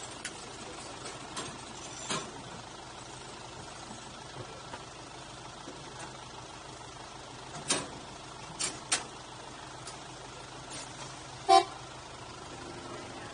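A narrow-gauge train running slowly: a steady low engine hum with scattered sharp clacks from the wheels and track, and one loud, short pitched note about eleven and a half seconds in.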